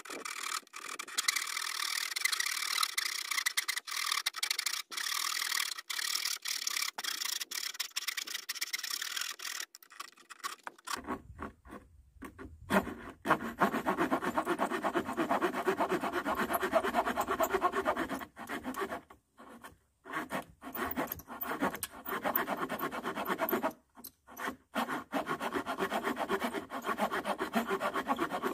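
Hand saw cutting wood in rapid back-and-forth strokes, trimming off a protruding piece. About ten seconds in, the sawing turns lower and fuller, and it stops briefly twice in the later part.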